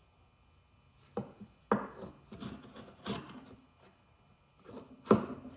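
Small Japanese hand plane cutting chamfers on the edge of a wooden mallet head: a series of short scraping strokes, the loudest about five seconds in.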